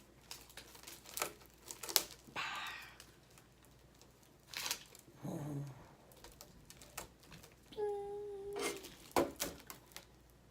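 A wafer packet's wrapper crinkling and tearing open, with scattered sharp crackles. About eight seconds in comes a short steady tone lasting about a second.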